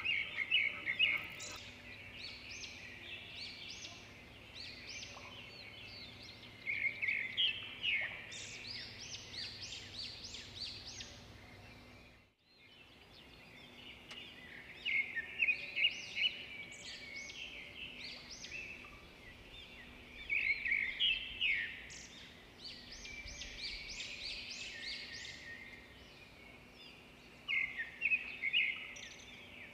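Small birds chirping and chattering in bursts of rapid high calls every several seconds. The sound cuts out briefly about twelve seconds in.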